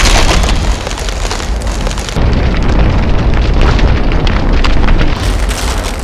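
Cinematic sound design of massive ice shattering and breaking up: continuous crackling and crashing over a deep booming rumble.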